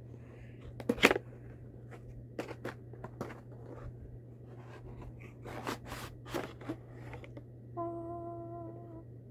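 Boxed toy pack being handled and taken out: a series of sharp clicks and crinkles of card and plastic packaging, the loudest about a second in. Near the end a short steady hummed note.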